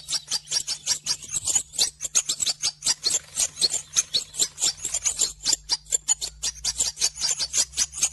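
Rapid high-pitched chirping, like nestling birds begging for food, several chirps a second without a break, over a faint steady hum.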